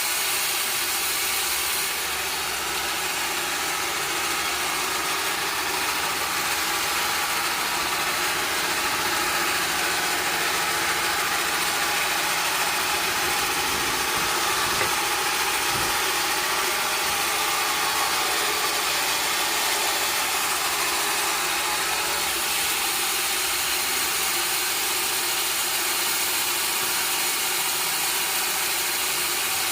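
Sawmill machinery running steadily at a constant pitch and level, with no cut in progress.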